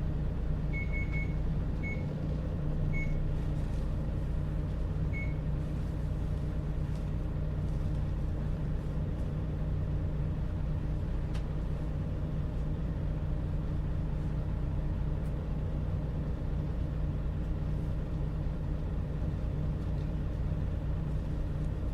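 Steady low drone of a bus engine running, heard from inside the passenger cabin, with a few short high beeps in the first five seconds.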